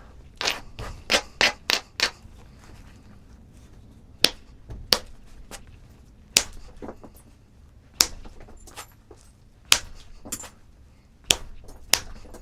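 Flintknapping a stone point: a quick run of about six sharp taps near the start, then single sharp stone clicks every second or so as flakes come off, to take a hump off one face.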